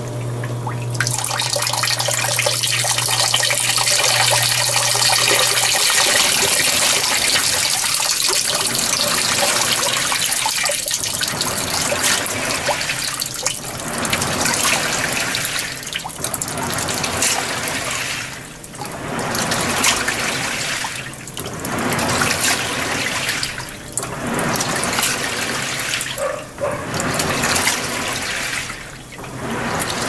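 Water running and splashing inside a Panasonic 16 kg top-loading washing machine's tub, with a low hum for the first few seconds. From about ten seconds in, the water noise swells and drops every two to three seconds.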